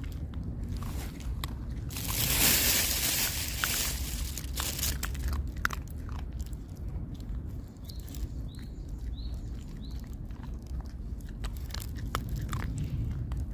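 A dog crunching and chewing food, with many short crackling bites, louder for a stretch about two seconds in.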